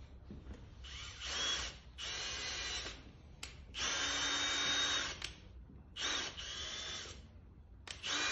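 Cordless drill-driver run in several short bursts of about a second each, setting fine screws straight up into a horse's hoof to fix a hoof clog. Its motor whine is steady within each burst, with small clicks between the bursts.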